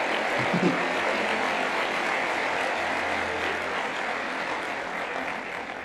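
Theatre audience applauding after a stand-up punchline, a steady wash of clapping that fades toward the end.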